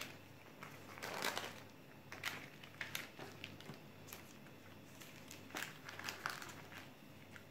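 Faint, irregular rustling and crinkling of baking paper as hands tear apart and gather soft sponge cake scraps on a lined baking tray.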